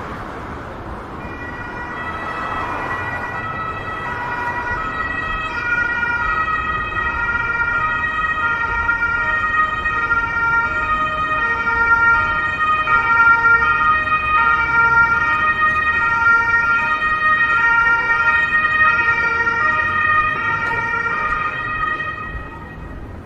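Emergency vehicle's two-tone siren alternating between a higher and a lower note, growing louder over several seconds as it approaches, then fading near the end as it passes, over street traffic noise.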